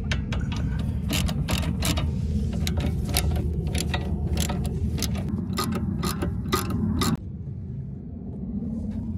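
Hand ratchet clicking in short, irregular runs as the nut on a new front sway bar link is run down with a socket; the clicking stops abruptly about seven seconds in. A steady low rumble sits underneath.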